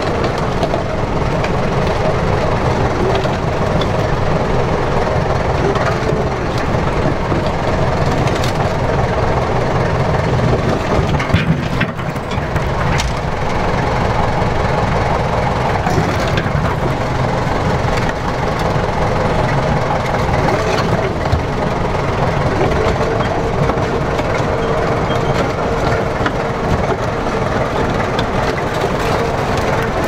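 Soviet T-100 crawler bulldozer's 10.8-litre diesel engine running steadily as the machine crawls forward, with the steel tracks clanking.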